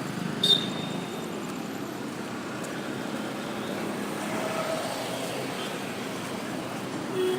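Steady road traffic: passing vehicles' engines and tyre noise, with a sharp click about half a second in and a vehicle horn beginning to toot near the end.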